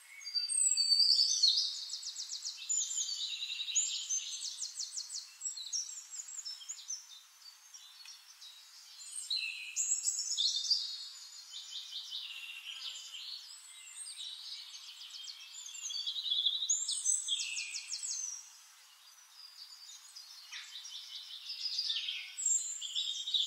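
Birds singing and chirping in repeated phrases of fast high trills and short gliding notes, loudest about a second in.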